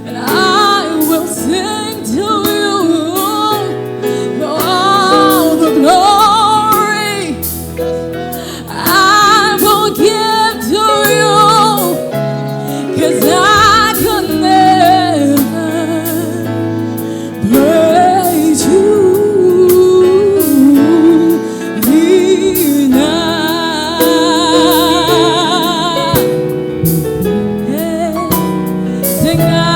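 Gospel worship song: voices singing a slow melody with vibrato over a steady instrumental backing.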